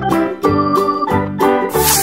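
Background music of organ-like keyboard chords, the notes changing about every half second. A short hissing whoosh sounds near the end.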